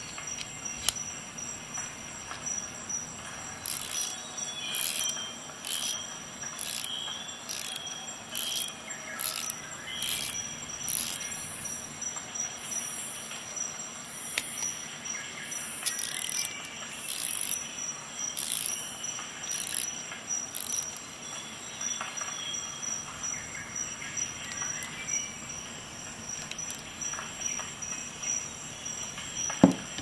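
A run of short, sharp clicks with a slight metallic ring, irregularly spaced about one every half-second to a second, over a faint steady high hiss; the clicks stop a little past the middle.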